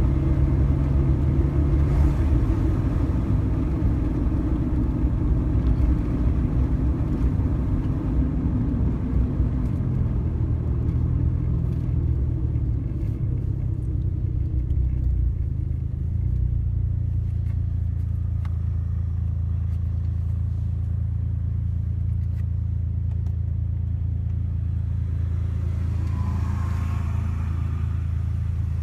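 Suzuki Jimny on the road: a continuous low engine and road rumble, heavier for the first half, then settling to a steadier, even drone about halfway through.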